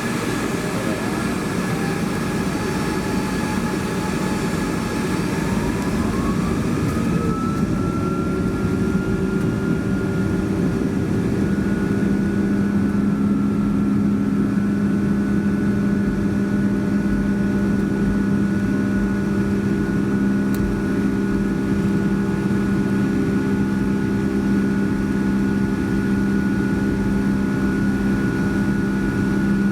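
Boeing 757's Rolls-Royce RB211 turbofan engines spooling up to take-off power, heard inside the cabin: a whine rising in pitch over the first several seconds, then holding steady, with a low steady hum joining partway through.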